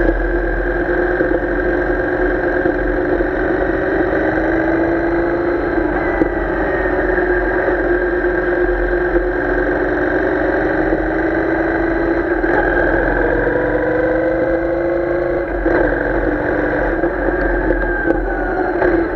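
Royal Enfield Interceptor 650's parallel-twin engine pulling under load as the motorcycle accelerates along the road. Its note rises slowly, breaks briefly about fifteen seconds in, then climbs again.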